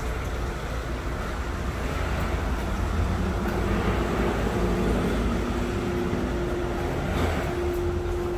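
City street traffic: a steady low rumble of road vehicles with a steady engine hum.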